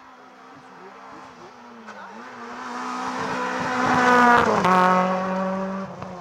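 Rally car engine running hard up a hill stage. It grows louder as the car approaches and passes close about four seconds in, where the pitch drops sharply, then fades as it drives away.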